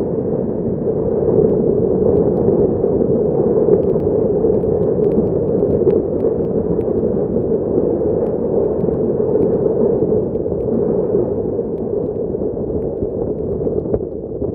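Steady loud rush of a moving passenger train heard from an open window or door, wind blowing on the microphone over the rumble of the coach running on the track.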